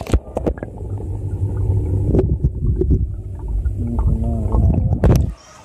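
Muffled low rumbling with scattered knocks and clicks, and a brief muffled wavering tone about four seconds in; it cuts off suddenly near the end.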